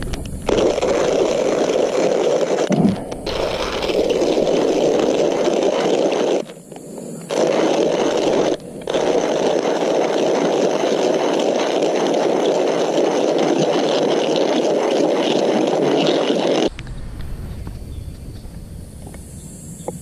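Hand-cranked coffee mill grinding coffee beans: a steady, loud crunching grind as the crank turns, broken by a few short pauses, stopping a few seconds before the end.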